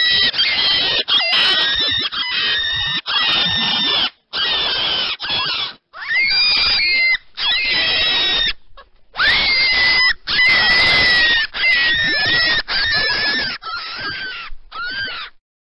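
Rabbit squealing: about fourteen high-pitched squeals, each half a second to a second long, one after another with brief breaks and some bending in pitch.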